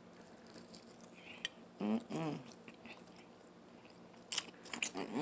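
A person biting into and chewing a mouthful of chicken, with soft wet mouth clicks. A short hummed "mm" comes about two seconds in, and a few sharper clicks near the end.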